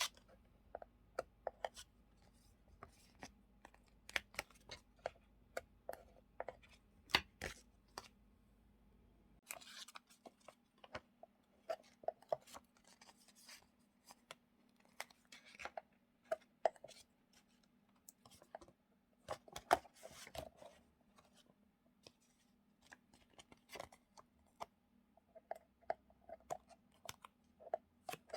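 Paper stickers and journaling items being handled and sorted into small boxes, close up: an irregular run of small clicks, taps and short rustles.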